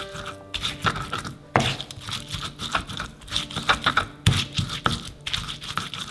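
Stone pestle grinding and pounding fresh red chilies and shallots in a flat stone mortar (Indonesian cobek and ulekan), with irregular wet crunching, scraping strokes and stone-on-stone knocks.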